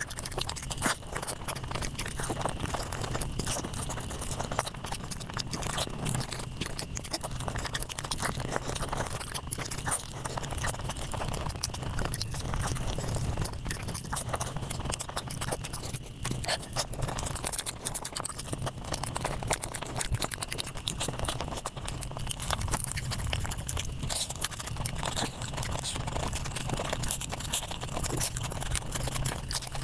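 Close-miked eating sounds played at five times normal speed: chewing and crunching run together into a dense, rapid stream of clicks.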